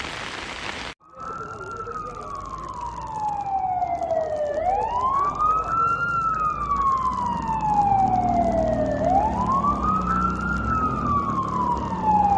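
Rain hiss for about the first second, then a cut to an emergency vehicle siren wailing: its pitch sweeps up quickly and falls away slowly, about every four and a half seconds, over a low rumble.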